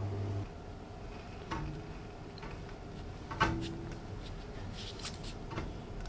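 Small handling sounds of twisted steel wire being wound around a hammer's rubber-coated iron handle: scattered light clicks and scrapes, with one sharper knock about three and a half seconds in.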